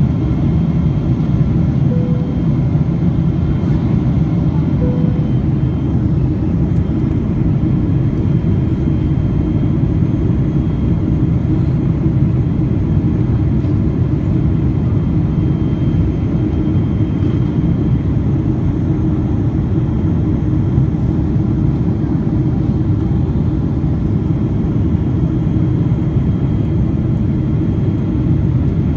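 Steady cabin noise of a Boeing 777-300 in flight, heard from a window seat beside the wing: an even, deep noise from the airflow and the Rolls-Royce Trent 800 engine, with faint steady whines above it.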